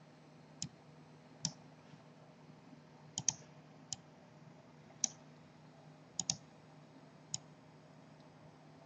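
Computer mouse clicking: about nine short, sharp clicks at irregular intervals, two of them quick double clicks, over a faint steady low hum.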